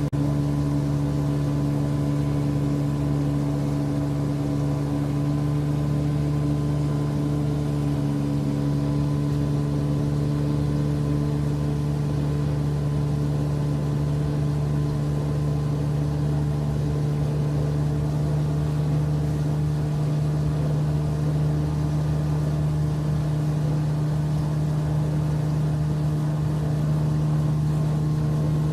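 Motorboat engine running at a steady speed, its drone holding one even pitch.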